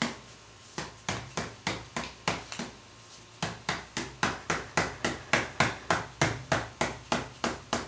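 A bottle of Titebond III wood glue being shaken hard, giving a steady run of sharp knocks about three or four a second, with two short pauses, as the glue slaps inside: mixing glue that has settled from sitting.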